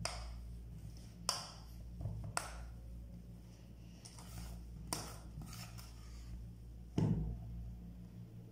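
Metal spoon stirring and scraping thick dough in a stainless steel bowl, clinking sharply against the bowl about four times, under a steady low hum.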